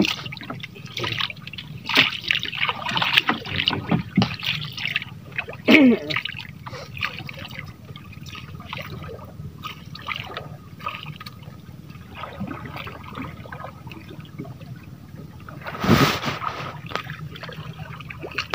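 Water trickling and splashing against a small fishing boat, with a short falling squeak about six seconds in and a sharp knock near the end.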